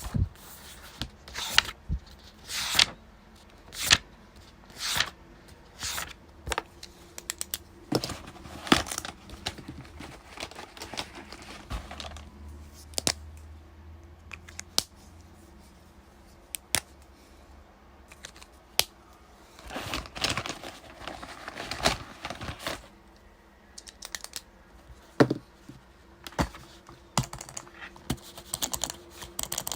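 Desk study sounds: irregular clicks and taps of keyboard typing, with occasional paper rustling and handling in a small room.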